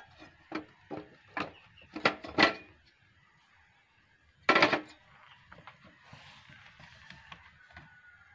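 Knocks, taps and clatter as a portable butane gas stove and its hard carrying case are handled. There are several quick knocks in the first couple of seconds and a louder clatter about four and a half seconds in, then lighter clicks.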